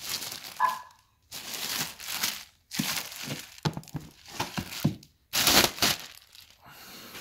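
Clear plastic wrapping crinkling as it is pulled off a cardboard box, in several bursts with short pauses between.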